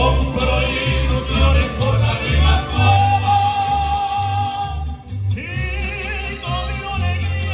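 Mariachi band playing live. The singers sing together and hold one long high note over a pulsing bass line. After a short break about five seconds in, the violins take up the melody.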